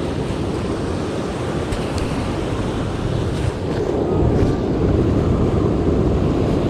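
Ocean surf breaking and washing on the shore, mixed with strong wind buffeting the microphone; the rush swells a little about four seconds in.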